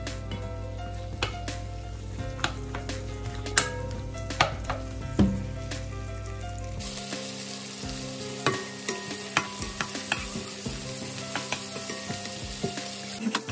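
Sliced onions frying in oil in a black nonstick wok, stirred with a nylon spatula that scrapes and taps the pan in scattered clicks. About seven seconds in, a steady hissing sizzle comes up strongly as the onions heat.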